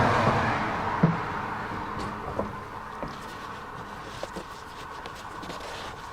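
New engine oil being poured from a plastic tub into the engine's filler, a rushing pour that fades away over the first couple of seconds, followed by a few light knocks as the tub and filler are handled.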